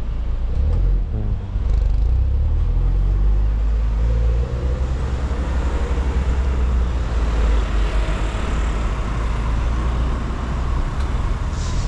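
Road traffic: cars passing close by one after another, a steady rumble of engines and tyres with vehicles rising and fading as they go by.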